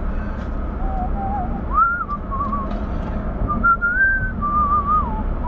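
Someone whistling a tune, a single clear melody line that moves up and down in short phrases, over the steady low road and engine rumble inside a moving car's cabin.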